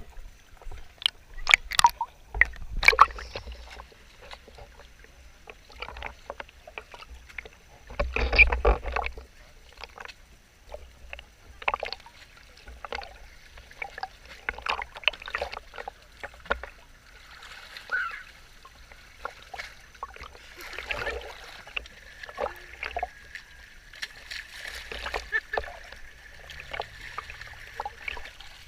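Water splashing and slapping irregularly around a small boat, with two low rumbles early on.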